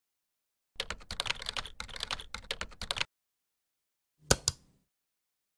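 Computer keyboard typing: a quick run of key clicks for about two seconds. A little over a second after the typing stops, a mouse click sounds as two quick clicks.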